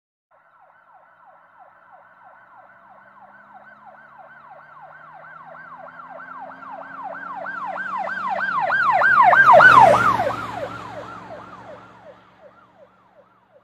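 Emergency vehicle's yelp siren sweeping fast, about four sweeps a second, with a low engine rumble beneath. It grows louder as it approaches, passes close about two-thirds of the way in with a drop in pitch, then fades away.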